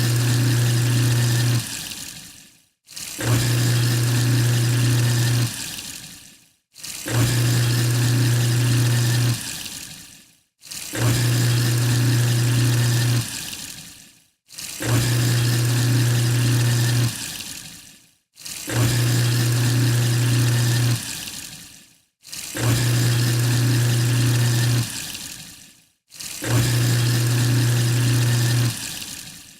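Sink garbage disposal unit running with water: a steady low motor hum under a rushing, grinding noise for about two and a half seconds, then trailing away. The same burst repeats about every four seconds, eight times over.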